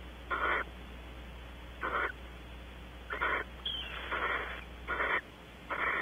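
Barn owl giving a series of short, harsh hissing calls, six in about six seconds, with one brief thin whistle a little past halfway.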